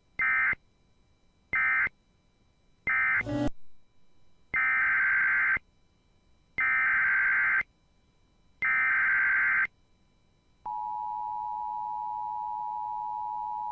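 Emergency Alert System tones: three short bursts of SAME digital data, the end-of-message signal closing the previous alert, and a short click. Then come three longer data bursts, the header of the next alert, and about ten and a half seconds in the steady two-tone EAS attention signal starts.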